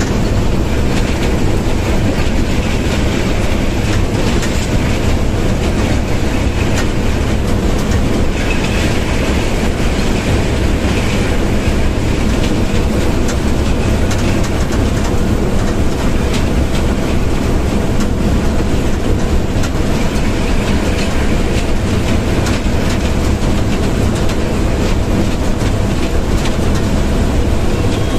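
Diesel locomotive running at about 84 km/h, heard inside the cab: a steady, loud engine rumble with the wheels clattering over the rail joints.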